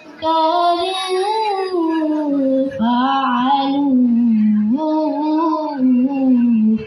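A woman's voice chanting Quran recitation (tilawah) in three long melodic phrases with short breaks for breath, each held on sustained notes that bend up and down in pitch. The last phrase stops abruptly near the end.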